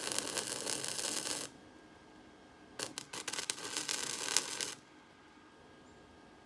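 Welding arc crackling on steel in two bursts of about two seconds each, with a short gap between them.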